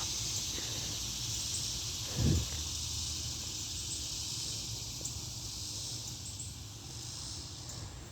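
Steady high-pitched chorus of insects, with a low rumble underneath and one soft thump about two seconds in.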